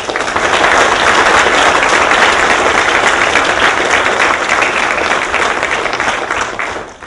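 An audience applauding, many hands clapping together; it starts abruptly and dies away in the last second or so.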